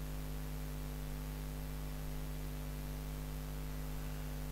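Steady electrical hum with a few fixed overtones over a constant hiss: background noise on the recording, with nothing else happening.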